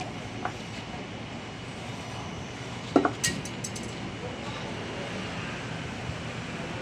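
Metal parts or tools clinking during engine repair work: a light clink about half a second in and one sharp ringing clank about three seconds in, followed by a few quick light clicks, over a steady background hum.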